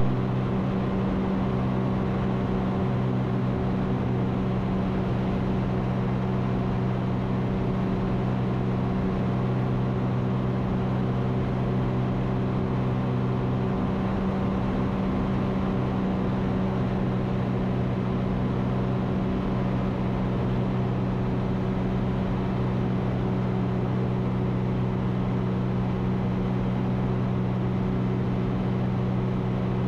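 Ikarus C42 light aircraft's engine and propeller running steadily at climb power, a constant drone with a low hum and a steady overtone above it.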